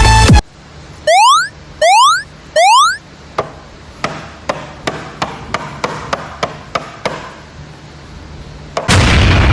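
Sound effects: three short rising electronic whoops, then a run of sharp clicks about two to three a second, then a loud rumbling blast near the end.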